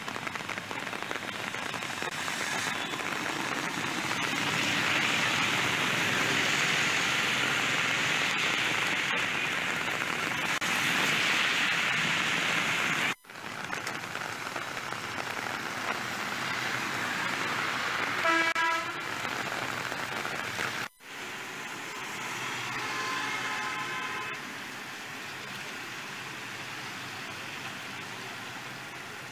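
Heavy rain pouring steadily on a road with passing traffic. A vehicle horn toots briefly about eighteen seconds in, and a fainter horn follows a few seconds later.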